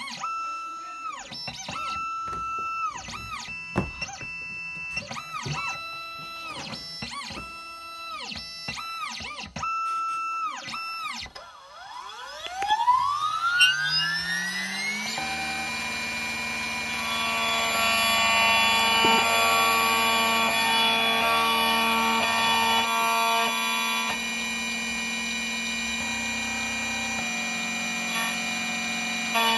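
Xhorse Dolphin key-cutting machine at work: its motors whine in short, repeated pitched steps as it positions the key blank, then about 12 seconds in the cutter spindle spins up in a rising whine and runs on at a steady high whine while milling the first side of the blank key.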